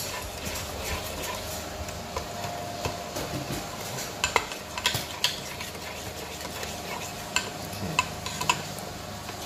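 Metal ladle stirring a thick pork marinade in a large stainless steel pot: the liquid sloshes and swirls, with scattered sharp clinks where the ladle knocks the pot's side, more of them in the middle and near the end.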